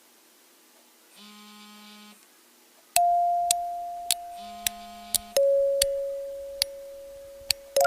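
Electronic background music or sound effects. A low buzzing tone sounds for about a second, twice. About three seconds in a clear bell-like chime note starts suddenly and slowly fades, then gives way to a lower note, with sharp ticks every half second or so.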